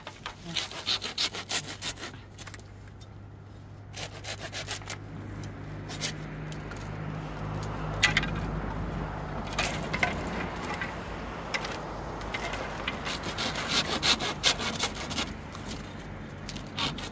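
Hand pruning saw cutting through a dry bamboo pole laid across a log, in runs of quick back-and-forth strokes, with a thinner stretch of strokes in the middle and the densest run near the end.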